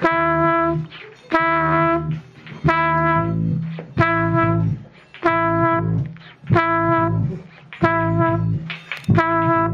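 Trumpet sounding the same note over and over in short, evenly spaced blasts, about one every 1.3 seconds, each starting sharply and fading. A low bass part sounds underneath.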